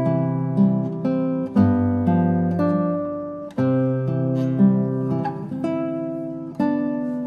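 Background music of a strummed acoustic guitar, a new chord struck about once a second and left to ring.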